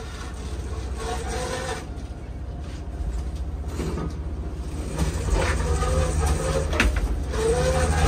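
A lobster boat's engine running with a steady low rumble. A whine rises and falls over it in the second half, and there is a sharp knock a little before seven seconds in.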